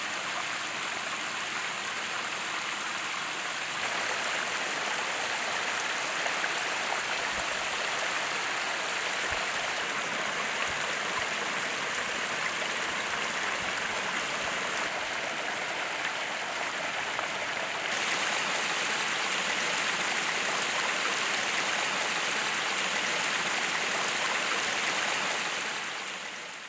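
Water spilling over stacked rock ledges of a pond waterfall and splashing into the pool, a steady rushing sound. It grows a little louder about four seconds in and again later on, then fades out at the end.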